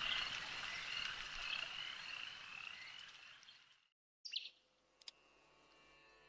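Faint night chorus of croaking frogs and insects, fading out about four seconds in. After a moment of silence comes a single brief high chirp.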